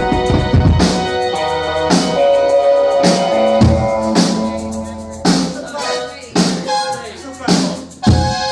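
Indie pop band playing live: drum hits about once a second over sustained keyboard chords.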